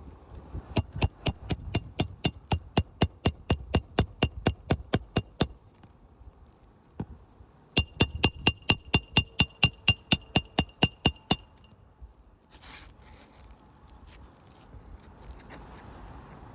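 Hammer blows in two quick, even runs, about four strikes a second, each strike with a metallic ring; the runs are separated by a short pause.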